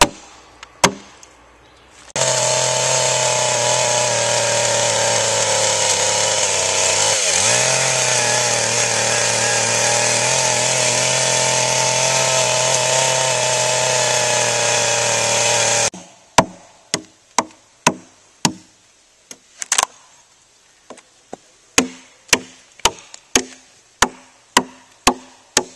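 Chainsaw running at steady high revs as it cuts a notch into a plate log, dipping briefly once under load, then stopping suddenly. Before and after it, sharp chopping strikes into the wood, about two a second near the end.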